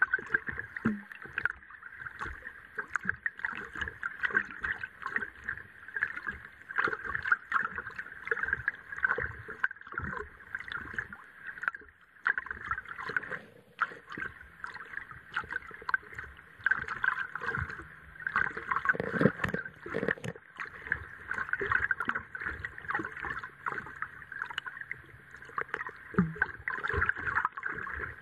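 Muffled underwater sound picked up by a submerged sports camera: a steady watery hiss with frequent small clicks and knocks, and a few louder thumps about two-thirds of the way through.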